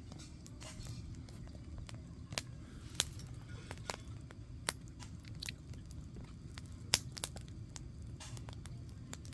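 Wood campfire crackling, with sharp pops at irregular intervals over a low steady rumble; the loudest pops come about three and seven seconds in.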